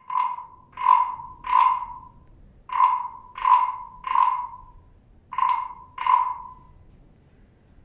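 Wooden frog rasp played by scraping, imitating a frog's croak: eight rasping croaks with a short ringing tone, in groups of three, three and two.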